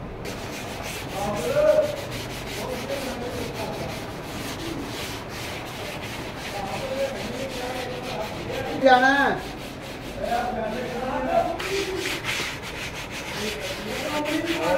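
A hand pad rubbing over the surface of an unfired clay wash basin in quick repeated strokes, a dry scratchy hiss as the greenware is smoothed before firing. A brief falling squeal stands out about nine seconds in.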